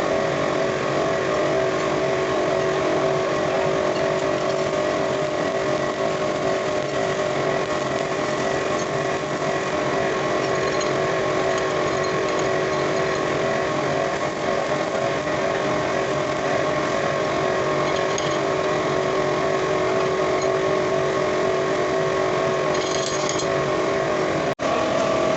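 Machinery running steadily, a continuous motor hum with a few fixed whining tones over a noisy hiss. It is briefly cut off once near the end.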